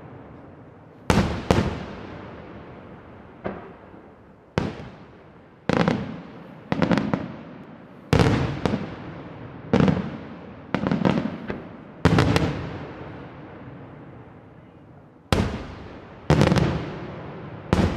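Aerial firework shells bursting: about fifteen sharp bangs at irregular intervals, some in quick pairs or triples, each followed by a long rolling echo, with a lull of about three seconds before the last few.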